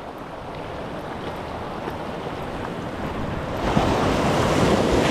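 Surf washing against shoreline rocks, building steadily and swelling loudest about three and a half seconds in, with wind buffeting the microphone.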